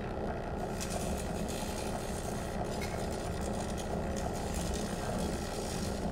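Dense, steady electronic drone from live experimental electronics and amplified sound objects: a low rumble under many held tones, with faint scratchy noise on top.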